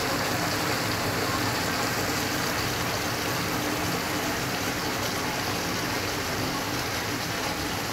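Chicken, tomato and onion curry sizzling and simmering in a wok: a steady hiss, with a faint low hum beneath it.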